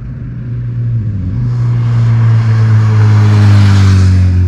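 Motor vehicle driving past on the road. Its engine note and tyre hiss build up from about a second in, peak near the end, and the engine pitch drops slightly as it goes by.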